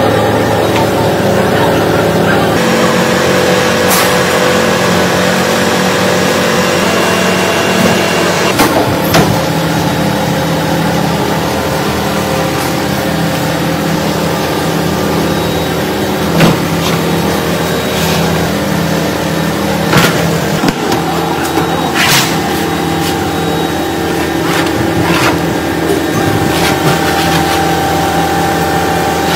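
Factory machinery running with a steady humming drone, with a few sharp knocks and clanks scattered through it as sheets are pulled from the metal press trays.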